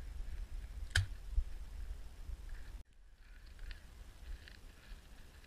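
Low wind rumble and handling noise on a small action-camera microphone, with one sharp click about a second in and a few faint, short distant calls. The rumble drops abruptly for a moment a little before three seconds in.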